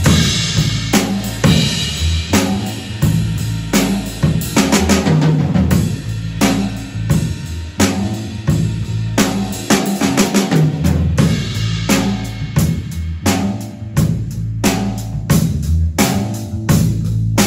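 Drum kit and electric bass guitar playing together live: a busy groove of kick drum, snare and cymbals over a moving bass line.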